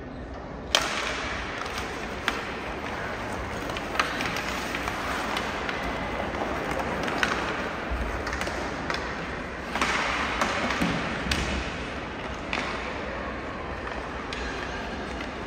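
Game-side ambience: a steady background din with scattered sharp knocks and taps, the loudest about a second in.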